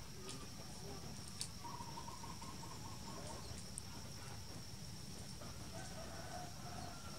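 Outdoor ambience: a steady high-pitched insect drone over a low steady rumble, with faint distant bird calls. One is a rapid run of repeated notes a couple of seconds in, and a fainter wavering call comes near the end.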